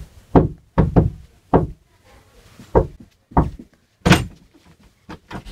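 A series of sharp knocks on a front door, unevenly spaced over about four seconds, the loudest a little past the middle.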